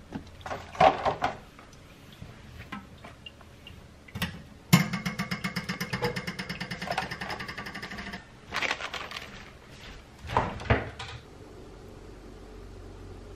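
Handling sounds at a stainless steel kitchen sink as mushrooms and small vegetables are put into a wire mesh strainer: several knocks and clatters, and a rapid rattle of about ten pulses a second lasting about three and a half seconds, starting about a third of the way in.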